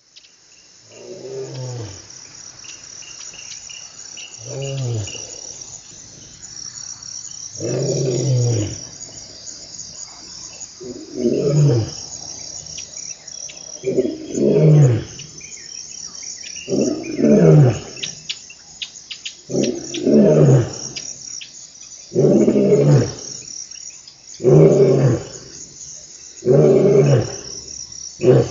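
Lion roaring: about a dozen deep grunting roars, each sliding down in pitch, a few seconds apart at first, then closer together and louder as the bout builds. A steady high chorus of insects runs underneath.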